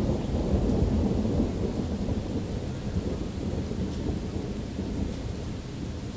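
Thunder rumbling, loudest in the first second or so and slowly rolling away, over steady rain.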